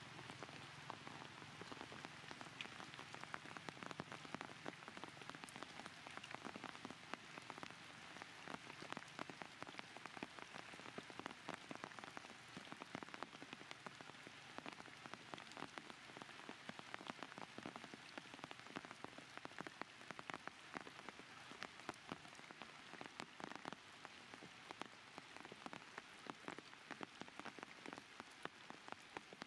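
Faint, dense patter of raindrops falling on surfaces: many small, irregular ticks over a steady hiss.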